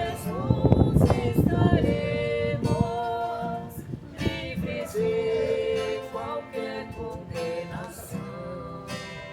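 Congregação Cristã no Brasil hymn music: held melody notes over plucked acoustic guitar. Wind buffets the microphone in the first three seconds.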